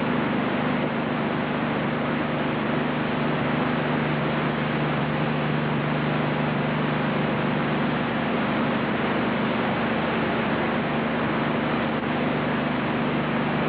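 Steady hiss with a low hum and no change, the background noise of an old recording.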